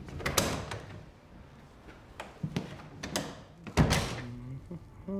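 A wooden door being opened and shut: a sharp clunk of the latch just after the start, a few lighter knocks and clicks, then the loudest thud as it closes about four seconds in.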